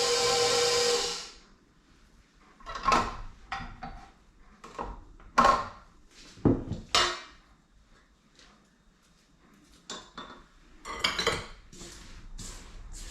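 Electric mixer running steadily through oatmeal cookie dough, switched off about a second in. Then scattered clinks and scrapes of utensils against the mixing bowl, about a dozen, with quiet gaps between them.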